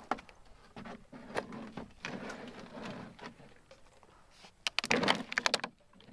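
Knocks and plastic rattles from a white plastic jerry can being handled where it hangs on a scooter, with a quick burst of sharp clatter about five seconds in.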